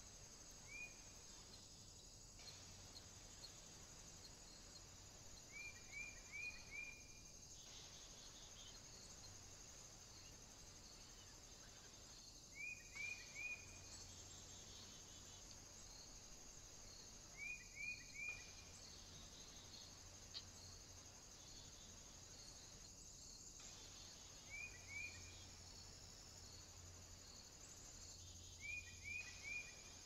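Faint, steady high-pitched insect drone, with short groups of two to four quick high chirps recurring about every five seconds.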